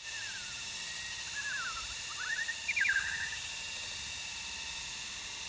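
Bird song of short clear whistled phrases: notes sliding down, then a quick rising phrase, then a louder falling series about three seconds in, typical of a white-rumped shama. A steady high hiss runs underneath.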